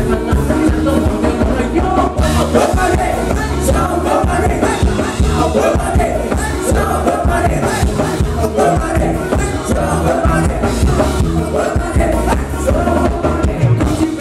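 Live Thai ramwong band music played loud through the stage PA, a man singing into a microphone over a steady, driving beat.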